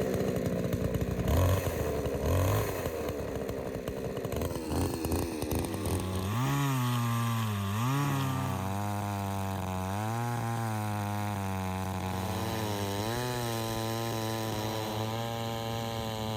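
Chainsaw cutting into a tree stump to make a Finnish candle. The engine pitch dips and recovers several times under load, then runs fairly steadily.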